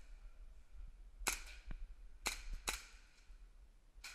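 Airsoft guns firing: three sharp single shots, about a second in, about two seconds in and again a moment later.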